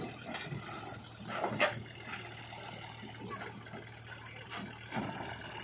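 Mahindra 295 DI Turbo tractor's diesel engine running steadily as it tows a trailer loaded with mud, with a few knocks and rattles, the sharpest about a second and a half in.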